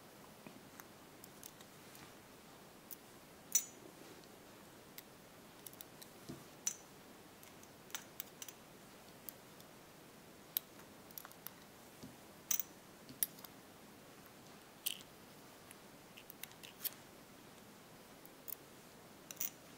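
Steel tweezers working in a brass lock cylinder's pin chambers, drawing out the hard serrated driver pins one by one: faint, scattered metallic clicks and ticks at irregular intervals.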